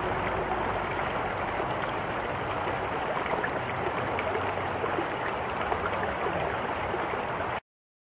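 Shallow creek water running steadily over stones, then cutting off suddenly near the end.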